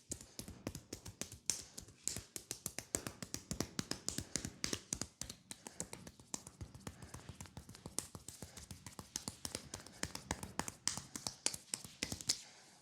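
Fast hand tapping and slapping on a leg during a percussive massage, about six quick strikes a second, stopping just before the end.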